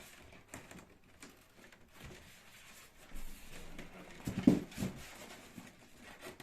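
Handling noise from the incubator's parts being fitted together: faint scattered clicks and rubbing, with one louder short knock about four and a half seconds in.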